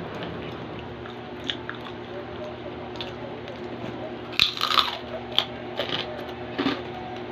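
Crispy chicharon (fried pork rind) being chewed close to the microphone: small crunches and mouth clicks, with one loud crunchy bite about four and a half seconds in and a few more crunches after it, over a steady low hum.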